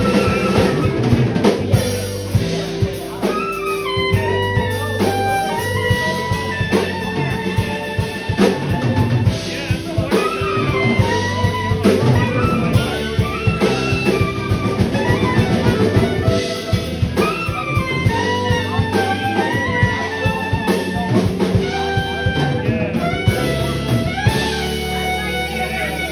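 Live band playing: a saxophone melody with bent, sliding notes over electric bass and a drum kit keeping a steady beat.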